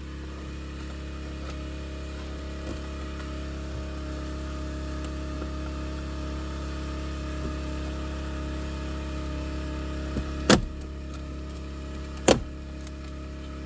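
Steady low hum inside the car's cabin, with two sharp plastic clicks in the last few seconds, a couple of seconds apart, as the shifter surround trim is pried up with a screwdriver.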